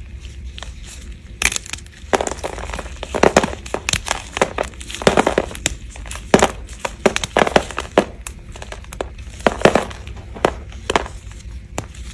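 Dry bar soap being cut, a run of crisp, irregular crunching cuts through the hard soap.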